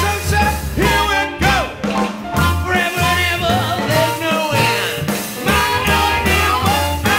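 Live band music: a singer at the microphone over a tuba playing the bass line, with drums.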